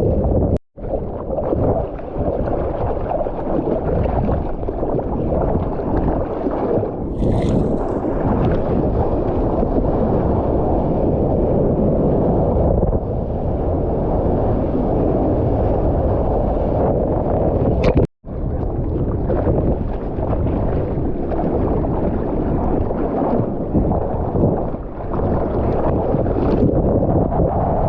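Wind buffeting and water rushing over an action camera's microphone while surfing, a dense low rumble of noise. It cuts out sharply for a split second twice.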